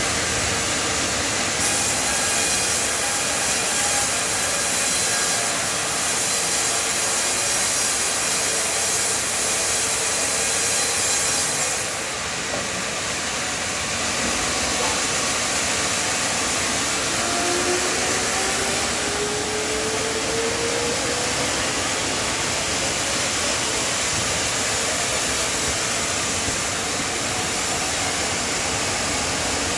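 Sawmill band saw and log carriage running while sawing a hinoki cypress log into lumber: a loud, steady mechanical noise, with a brighter hiss for about the first ten seconds and a slowly rising tone around the middle.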